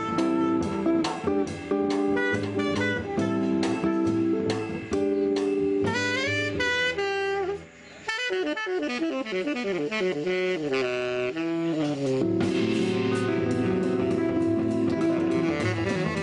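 Live jazz combo playing: archtop acoustic guitar comping in steady chord strokes over upright bass and drums, with a saxophone melody line moving through the second half.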